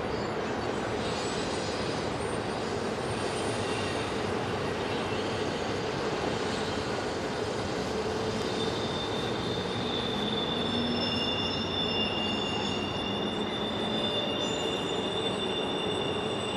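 Railroad cars rolling steadily past with a continuous rumble, joined about halfway through by high, thin wheel squeal.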